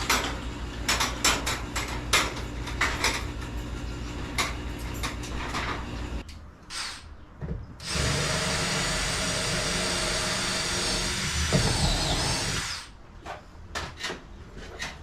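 A power drill runs steadily for about five seconds, starting about eight seconds in and stopping sharply. Before it come about six seconds of scattered knocks and clicks of hand work on the door hardware.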